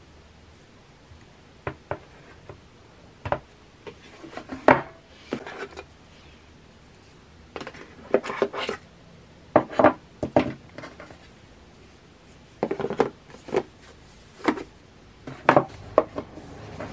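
Cardboard packaging of an iPad Pro box being handled on a tabletop: irregular taps, knocks and short rubbing scrapes as the paperboard insert tray is lifted off the tablet.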